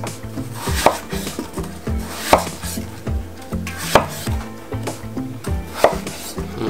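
Chef's knife slicing a peeled apple into chunks on a wooden cutting board, with four sharp knocks as the blade strikes the board, one every one and a half to two seconds, and softer cutting sounds between.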